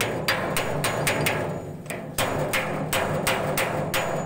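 Hammer striking the steel shaft and bearing fitting of a concrete bagger mixer, driving the bearing fully home. It lands two runs of quick, ringing metal blows, about three to four a second, with a short pause a little over a second in.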